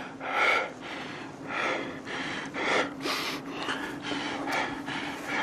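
A man breathing heavily and quickly through an open mouth, one audible breath after another, over a faint steady hum.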